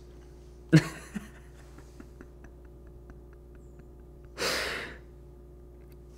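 A man's short burst of laughter, then faint quick ticking, and a long breathy sigh a little past four seconds in.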